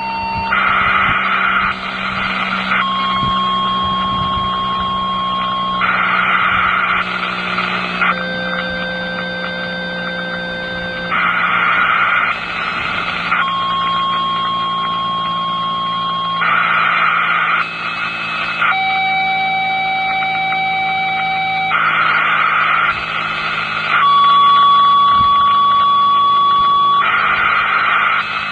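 A run of fire-dispatch two-tone pages over a radio scanner app: a burst of static, then a steady tone held about three seconds, sometimes after a shorter first tone, at a different pitch each time. It repeats about every five and a half seconds, five times, over a low steady hum.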